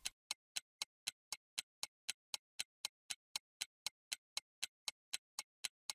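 Clock-like ticking sound effect, even and steady at about four ticks a second, serving as a pause-and-think timer for working the problem.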